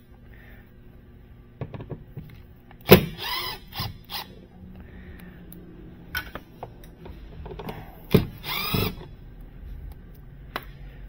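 Brushless Milwaukee cordless driver with a long magnetic Phillips bit backing out the door-panel screws: two short runs of motor whir, each about a second, the pitch gliding as the motor speeds and slows, with a few clicks of the bit and tool handling in between.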